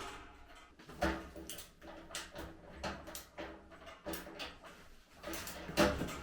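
Irregular clicks and knocks of barbecue parts, screws and tools being handled during assembly, about eight separate knocks.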